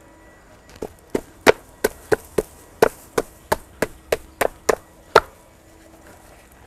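Hand slapping the sides of a plastic nursery pot: a quick series of about fourteen sharp knocks, roughly three a second, loosening the root ball so the shrub can slide out.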